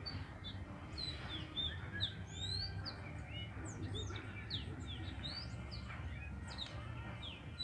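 Many small birds chirping and twittering in quick, short calls, over a low steady rumble.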